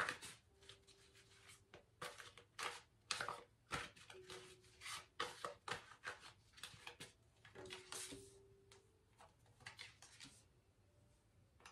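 A deck of tarot cards shuffled by hand: a run of quick, soft strokes of card sliding against card, thinning out near the end as cards are set down on the table.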